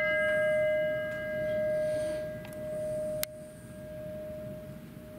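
A single bell note, struck just before and ringing on with a slow pulsing swell, then cut off suddenly a little over three seconds in. It is a memorial bell rung once after each name of the departed is read out.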